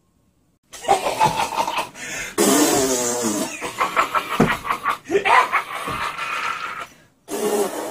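Harsh, raspy demonic vocalizing from a person playing someone possessed, with the pitch gliding up and down. It starts after a moment of silence and breaks off briefly near the end.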